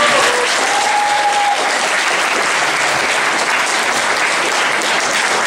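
Audience applauding steadily, with a voice briefly heard near the start.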